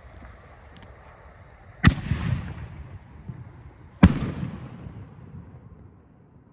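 Two loud bangs from an aerial firework shell about two seconds apart, each trailing off in a long rolling echo. The breaks are louder than some salutes.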